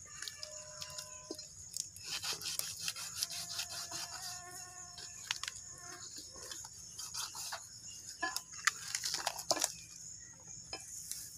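Knife cutting and scraping at the meat and bone of a skinned cow head: a steady run of short taps and scrapes, with a couple of louder knocks near the end.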